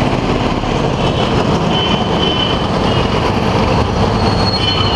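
Steady noise of busy road traffic going past, with faint high-pitched squeals now and then.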